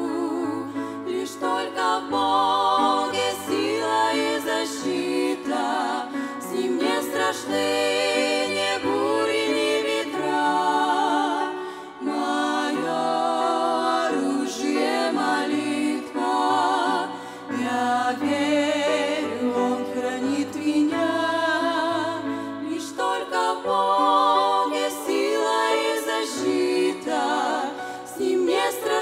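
Women's voices singing in harmony with vibrato, accompanied by a grand piano.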